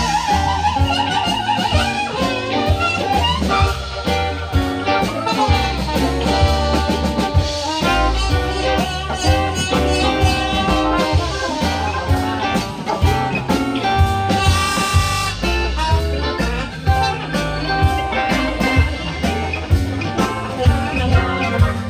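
Live blues-swing band playing: a trumpet carries the lead over electric guitar, electric bass and drum kit.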